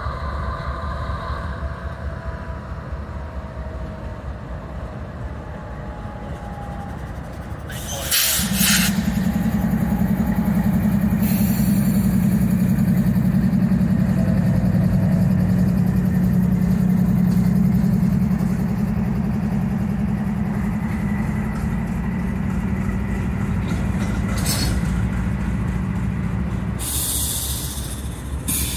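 Norfolk Southern freight train's GE diesel-electric locomotives passing close by, their engines running in a steady drone that gets markedly louder about eight seconds in as the lead units draw level and eases after about eighteen seconds. A few short bursts of hiss come over it.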